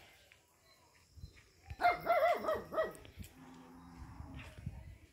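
A dog barking: a quick run of four or five barks about two seconds in.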